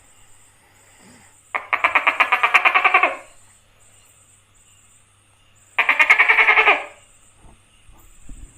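Tokay gecko calling: two rapid, rattling croaks about four seconds apart, each lasting a second or more.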